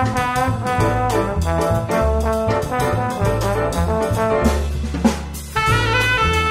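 Jazz-style background music with brass, bass and drums. About five and a half seconds in it breaks off briefly and a new section starts with long held notes.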